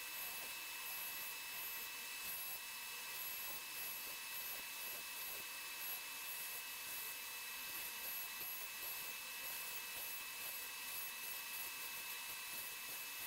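Dremel 4300 rotary tool on a flex shaft, running at speed with a steady high whine, its metal-cutting burr grinding into wood.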